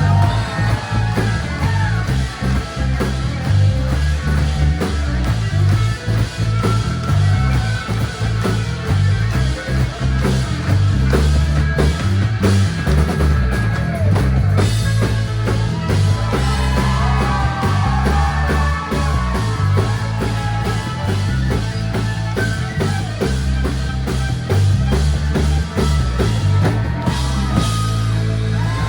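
Live rock band playing an instrumental break: a steady drum beat and bass, with a wavering lead melody over them in the middle.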